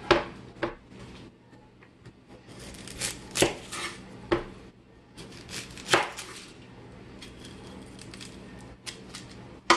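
Knife cutting a yellow onion: a handful of irregular knocks and scrapes, not a steady chopping rhythm.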